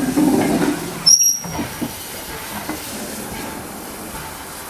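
Steam train of Caledonian Railway tank engine No. 55189 and a goods brake van rolling slowly past, its wheels rumbling and clicking on the rails. A brief high-pitched wheel squeal comes about a second in.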